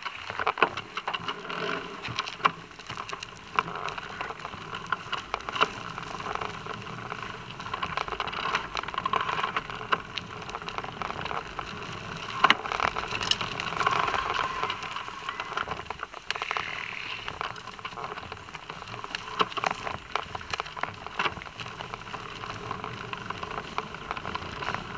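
A bicycle being ridden on a paved path, its tyres and frame rattling, with irregular clicks and knocks from the bike throughout.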